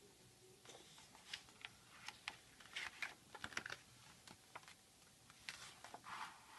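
Faint, irregular clicks and taps of a picture book being handled between readings.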